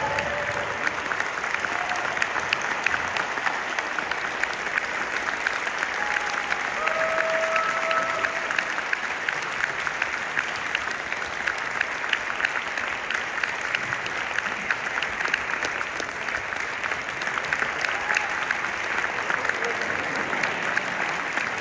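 Concert-hall audience applauding steadily after a performance, with a couple of brief calls from the crowd near the start and about seven seconds in.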